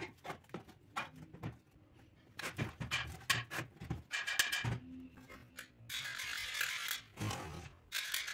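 Heavy steel parts of giant hand-made locking pliers handled on a steel workbench: a string of sharp metallic knocks and clinks, some with brief ringing. About six seconds in, and again near the end, comes a scraping rub of metal sliding on metal.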